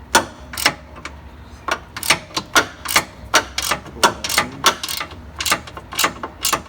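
Hand ratchet clicking in a run of sharp clicks, about two a second, as an 18 mm bolt holding the steering rack to the subframe is backed out.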